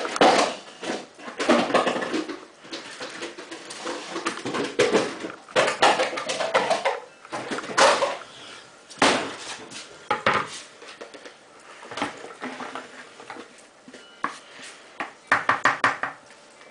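Bowls and dishes clattering and knocking as someone rummages in a lower kitchen cabinet for a bigger mixing bowl. Near the end, a wooden spoon scrapes quickly and repeatedly as the mixture is tipped from one plastic bowl into another.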